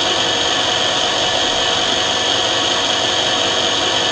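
Lens drilling machine's milling cutter spinning on its small electric motor, running steadily as it mills into an eyeglass lens, with a constant whine.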